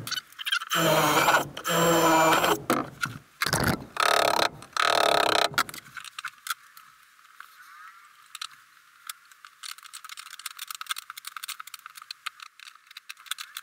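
A cordless drill runs in several short bursts for the first few seconds. Then comes a long run of quick, light clicks from a ratcheting wrench tightening locking nuts.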